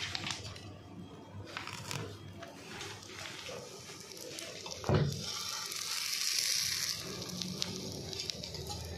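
Maniyan batter sizzling on a hot non-stick tawa. A sharp knock comes about halfway through, then the hiss grows for a couple of seconds, with light clicks and taps of utensils around it.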